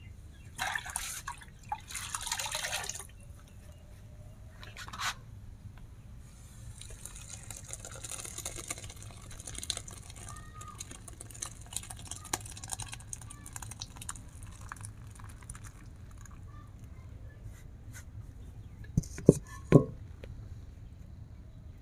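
Curdled milk and whey poured from a pan through a cloth strainer into a bowl, splashing and trickling for several seconds. Two sharp knocks near the end are the loudest sounds.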